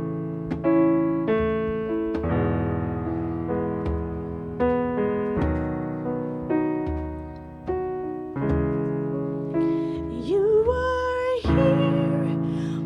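Electric piano playing slow sustained chords, each struck and left to ring. About ten seconds in, a voice comes in singing a wordless line that slides up in pitch over the keyboard.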